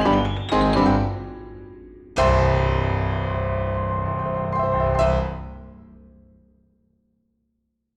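Piano music: a few repeated chords over a rising tone, then a loud closing chord about two seconds in that rings on, with one more struck accent, and fades out to silence.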